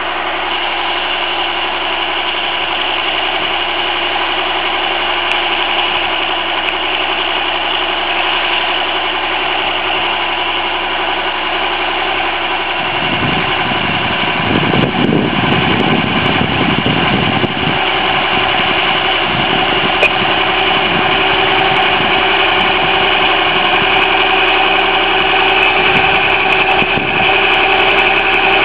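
Fiatagri 160-90 DT tractor's six-cylinder turbo diesel engine running steadily under load while pulling a reversible plough through the soil. It grows slightly louder as the tractor comes closer.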